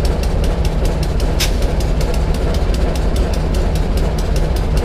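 A diesel-powered passenger train running at close range: a steady low engine rumble, with a fast run of sharp ticks over it.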